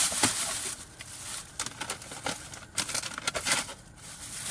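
Plastic shopping bag rustling and crinkling as it is handled, in irregular crackles and clicks.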